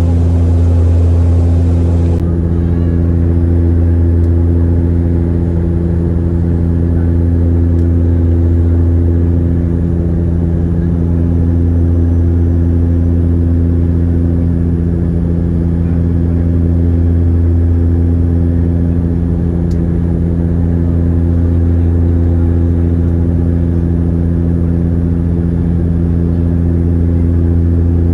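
Steady engine drone inside an airliner cabin in flight: a loud, unchanging low hum with a few steady tones above it.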